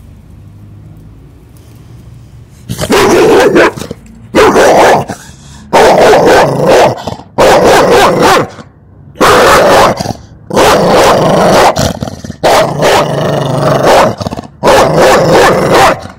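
A dog barking loudly and repeatedly right at the microphone, starting about three seconds in and going on in about eight bouts.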